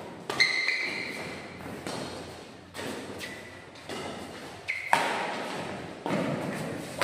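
Badminton doubles rally: sharp racket-on-shuttlecock hits about once a second, each echoing in the hall, the loudest about five seconds in. Short squeaks of shoes on the court mat come between some of the hits.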